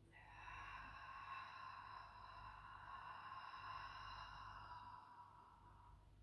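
A long, slow exhalation through the mouth lasting about six seconds, part of the controlled Pilates breathing held during a plank.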